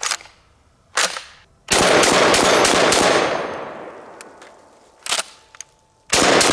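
IWI Tavor TS12 semi-automatic 12-gauge shotgun firing birdshot: two single shots, then a rapid string of shots whose echo trails off over a couple of seconds, another single shot, and a second rapid string starting near the end.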